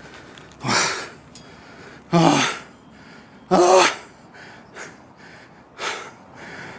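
A man breathing hard: five heavy, gasping breaths about a second and a half apart, some with voice in them. He is winded after a long fight landing a large fish.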